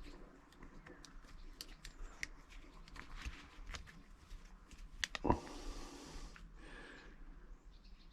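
Stainless-steel Leatherman MUT multitool being handled and unfolded: a string of small metallic clicks and rustles, with one louder click about five seconds in.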